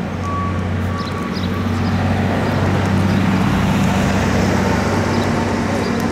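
A large vehicle's engine running close by, its rumble swelling to its loudest mid-way and easing off again. A reversing alarm gives one last beep at the very start.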